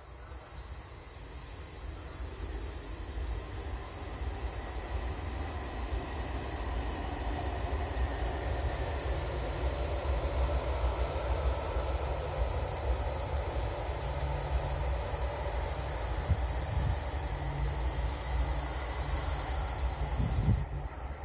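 A train running through the station below, its rumble of wheels on rails building over the first several seconds and then holding steady. Insects keep up a steady high drone.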